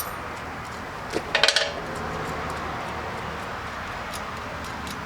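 Metal parts clinking and clattering in a short burst about a second and a half in, over a steady background hiss.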